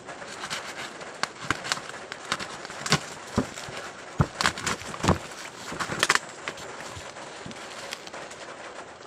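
Irregular clicks, snaps and crinkles of packaging being handled, as a router's box is opened, over a steady background hiss.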